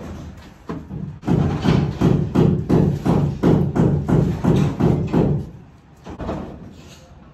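Sheet-metal duct being knocked into place in a wood-framed stud wall: a run of heavy thumps, about three a second for about four seconds, with a few softer knocks before and after.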